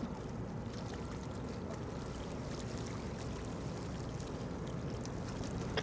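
Distant military helicopters, two tandem-rotor MH-47 Chinooks and an MH-60 Black Hawk, approaching in formation: a steady low rotor rumble.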